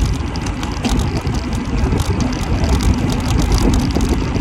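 Wind rushing over a handlebar-mounted camera's microphone, with road rumble and frequent small rattles from a bicycle being ridden along a paved street.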